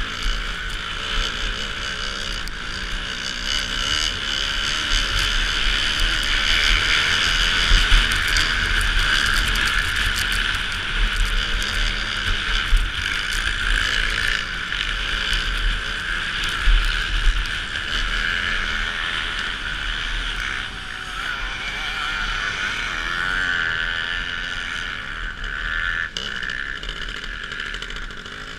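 Dirt bike engine running hard and steady as it tows a skier over snow, with wind buffeting the microphone in gusty low rumbles. It eases off slightly in the second half.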